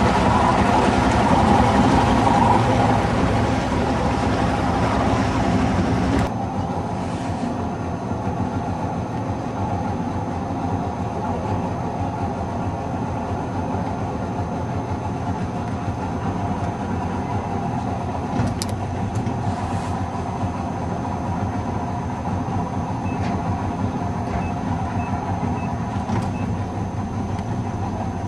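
A boat's engine running steadily, a continuous droning rumble with a thrumming pulse. About six seconds in, it drops a little and loses some of its deep low end.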